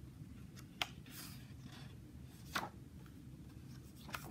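Faint handling of a hardcover picture book as its page is turned: a short paper swish and three light taps, over a low steady hum.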